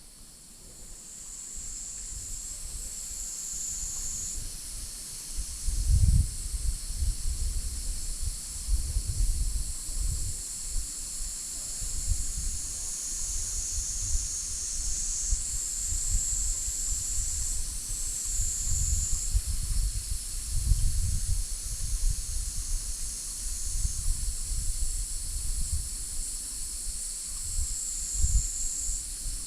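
Insect chorus: a steady high-pitched buzzing with louder shrill stretches of a second or two coming and going. Under it, wind gusts rumble on the microphone.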